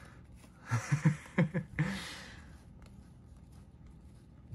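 A man chuckling quietly: a few short, breathy laughs starting about a second in, trailing off into an exhale.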